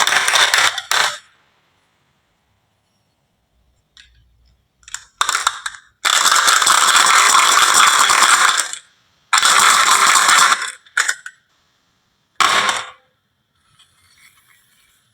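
Marbles rolling and clattering along a wooden marble run, in several loud rattling runs of one to three seconds separated by silent gaps, with a few short clicks between them.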